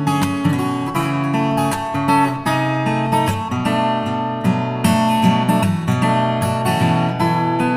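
Background music on a strummed acoustic guitar, with regular strokes and ringing chords.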